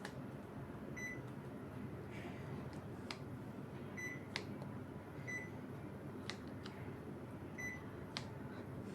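Panasonic inverter air conditioner's indoor unit giving four short, high beeps a second or more apart, the acknowledgment beeps as it takes remote-control commands, with several sharp clicks in between over a steady low hum.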